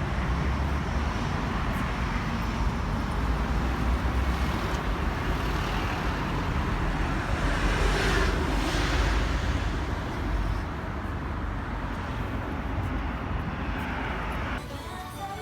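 Steady low rumbling background noise with no clear single source. Music comes in near the end.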